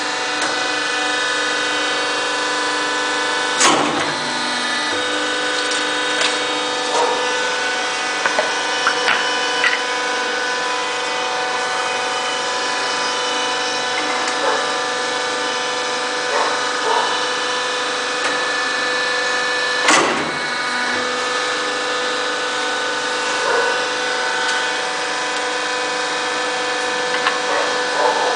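The hydraulic power unit of a paving-stone splitting press runs with a steady whine. Two sharp loud cracks come about 4 s and 20 s in as stone is split under the blade, with smaller clicks and knocks in between.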